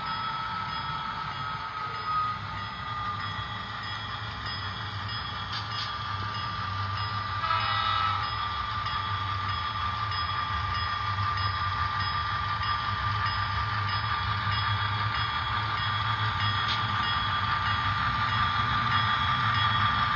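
Model diesel locomotives running on a layout, a steady whine over a low rumble that grows louder as the train approaches. A short horn toot sounds about seven and a half seconds in.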